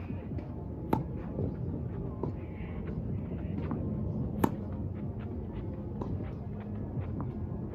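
Tennis rally: a tennis ball struck by rackets and bouncing on the court. There are sharp pops at the start, about a second in and, loudest, about halfway through, with fainter hits and bounces between, over a steady low background rumble.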